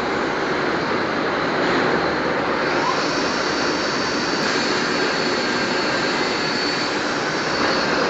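Plywood edge-trimming saw machine running steadily: a loud, even mechanical noise with a faint high whine.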